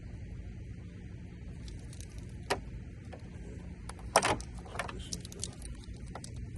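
Light metallic clinks, clicks and short rattles of wiring connectors and small parts being handled while the flex-fuel kit's injector harness is wired up, loudest about four seconds in. A steady low hum sits underneath throughout.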